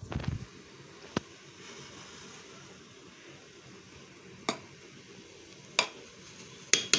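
A ladle turning over cooked chicken biryani rice in a pot: a soft scrape and thud at the start, then about five sharp clinks of the ladle against the pot over a faint steady hiss.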